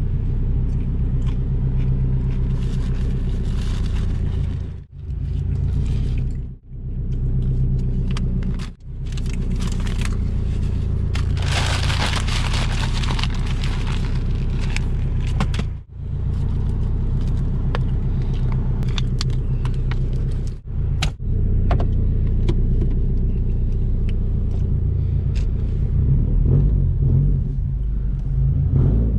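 Straight-piped 2004 Subaru WRX STI's turbocharged flat-four idling steadily with a deep rumble, heard from inside the cabin. About twelve seconds in, a paper food wrapper is crumpled by hand for a few seconds. Near the end the engine note becomes uneven and a little louder as the car pulls away.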